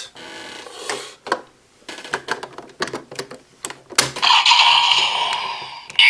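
Plastic clicks and knocks from a DX Powered Builder Buckle toy being handled and reconfigured. About four seconds in, a sharp click sets off the toy's electronic sound effect, a steady high-pitched electronic tone from its speaker.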